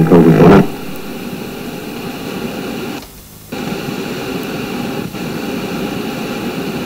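Steady hiss and static from an old home tape recording, dropping out briefly about three seconds in.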